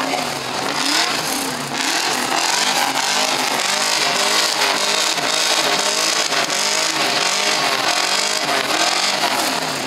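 Several classic Ford Mustang V8 engines being revved together, their pitches overlapping and repeatedly rising and falling.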